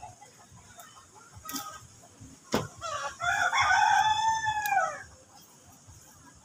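A rooster crowing once: a long call of nearly two seconds, arching and falling away at the end. A sharp knock comes just before it.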